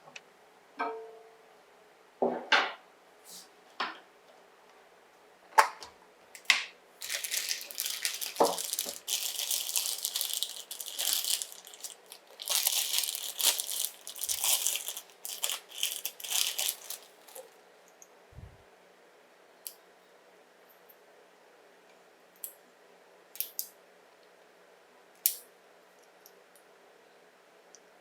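Packaging being handled during an unboxing: a few knocks, then about ten seconds of crinkling and tearing of wrapping material, then scattered light clicks.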